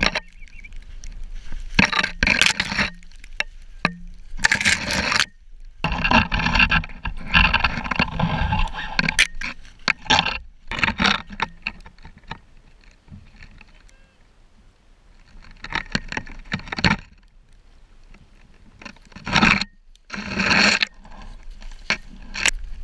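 Dry weed stalks and snow rustling and scraping against the camera as it pushes through snowy brush with the dog, in irregular bursts with quieter gaps between.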